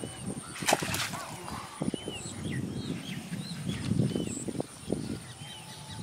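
Gusty wind rumbling on the microphone in an open field, with small birds chirping over and over in short arched notes. A brief sharp swish comes about a second in.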